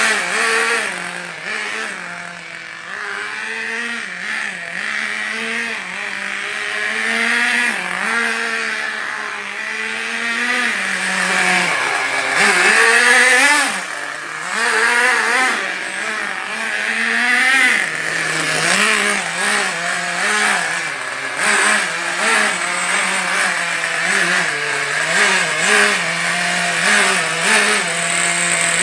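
Small nitro (glow-fuel) engine of a radio-controlled car running and revving up and down as the throttle is worked and the car drives away; loudest about 12 to 14 seconds in.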